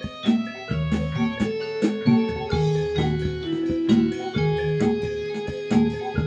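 Music accompanying a jaranan dance performance: long held melody notes over a repeating low bass figure, punctuated by drum strokes.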